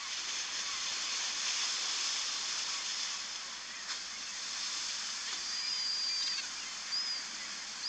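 Steady hissing ambient noise, like wind or surf. In the second half it carries a few faint, short, high whistles.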